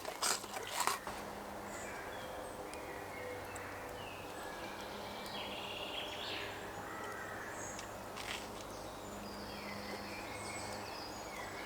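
Quiet woodland ambience with birds chirping and calling now and then. In the first second there are a few crisp crunches of someone biting into toast.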